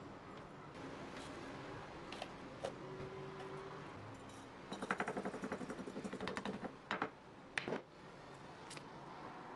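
Raw red kapia peppers being torn open by hand and seeded over a glass bowl: a few scattered clicks, then a run of quick crisp crackles for about two seconds around the middle, followed by a couple of sharp clicks.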